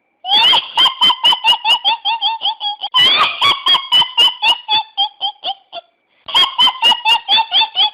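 High-pitched, sped-up laughing played as a novelty ringtone: rapid 'ha-ha-ha' pulses, about six a second, in three runs with brief breaks between them.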